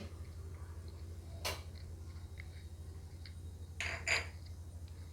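A few light clinks of kitchenware being handled: one about a second and a half in and a quick pair near four seconds, over a low steady hum.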